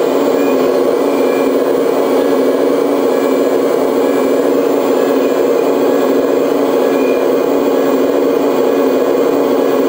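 Engine sound of a large RC hydraulic excavator, a model of the Liebherr R 970 SME, playing steadily from its built-in sound module while the grapple is worked.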